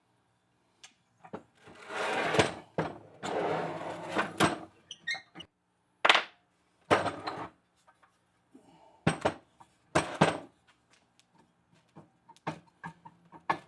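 Metal parts and hand tools scraping and clattering while a drill press is taken apart. Two rough scraping rattles of about a second each come early, then a series of separate sharp knocks and clinks.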